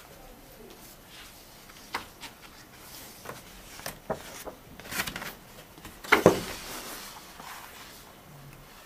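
Paper hex map and cardboard counter sheets being handled on a tabletop: scattered taps and rustles, with a loud crinkle about six seconds in.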